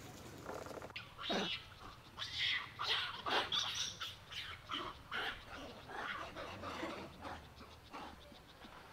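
Macaques calling: a quick run of short, high squeals and cries, roughly two a second, starting about a second in and fading near the end.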